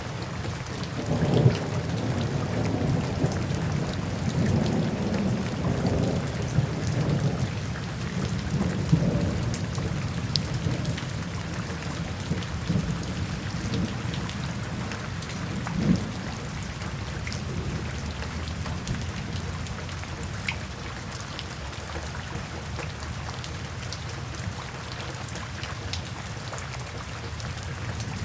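Steady rain falling, with low rolling thunder that is heaviest over the first ten seconds or so and a short, sharper thunder crack a little past the middle.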